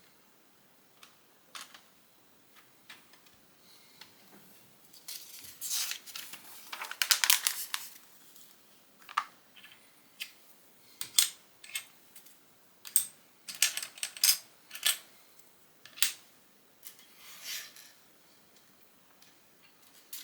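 LEGO plastic bricks being handled and snapped together: scattered sharp clicks, with a denser stretch of clattering from about five to eight seconds in as loose pieces are sorted through.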